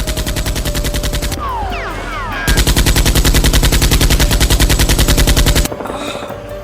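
Rapid automatic gunfire, the sound effect laid over the blaster fight. A first burst gives way to a short pause with falling whistling tones, then a longer, louder burst of about three seconds cuts off suddenly.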